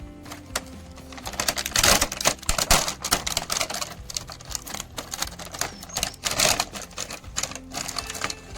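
Rapid clicking and rattling of small plastic toy cars and their packaging being handled, with louder crinkling bursts about two seconds in and again around six seconds in, over background music.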